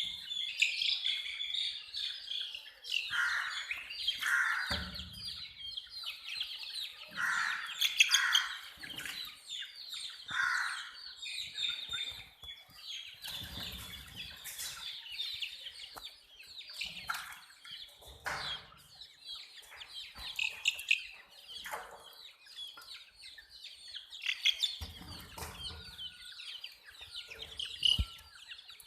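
A group of baby chicks chirping continuously, many short high peeps overlapping, with a few dull low bumps now and then.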